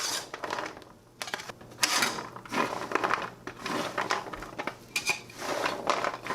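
Butter-roasted pecans being stirred and pushed around a cookie sheet with a utensil: irregular scraping and rattling of nuts and utensil against the pan, a stroke every half second or so.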